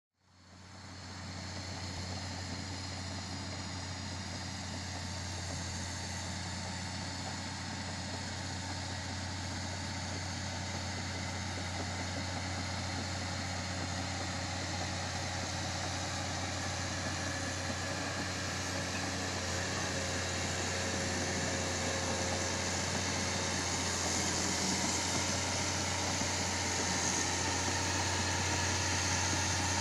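Caterpillar 320C hydraulic excavator's diesel engine running steadily with a constant low hum, growing gradually louder toward the end.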